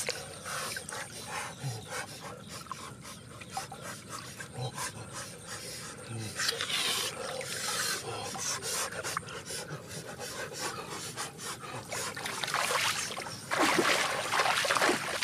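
Hands washing raw chicken pieces in water in a metal pan: splashing, squelching and scraping against the pan, with louder splashing about halfway through and again near the end.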